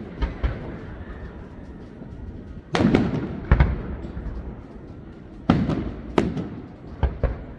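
Fireworks display: aerial shells bursting in a series of loud bangs, each trailing off in a low rumbling echo. A small bang comes just after the start, big ones come about three seconds in and again half a second later, two more come around five and a half and six seconds, and a close pair comes near the end.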